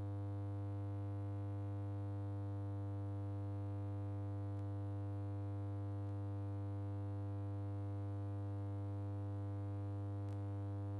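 A steady electronic hum or drone: one low, unchanging pitch with many overtones, holding at a constant level throughout.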